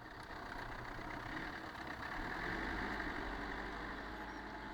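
Off-road 4x4's engine running steadily under light load, growing a little louder about two seconds in, then easing.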